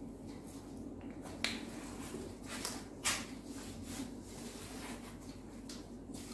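Whiteboard marker writing, then a board eraser wiping the whiteboard in a series of short rubbing strokes, with two sharp taps about a second and a half apart.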